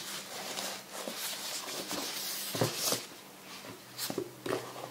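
Rustling and crinkling of a device's white wrapping as it is lifted out of a cardboard box and pulled open. There are a few sharper crackles about two and a half seconds and four seconds in.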